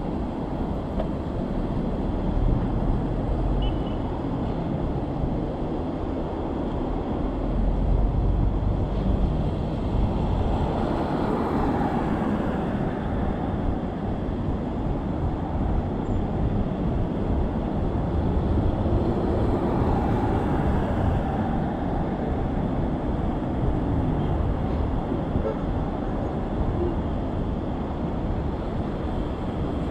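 Steady road-traffic noise heard while cycling, with wind rumbling on the microphone. Passing vehicles swell and fade about ten seconds in and again around twenty seconds in.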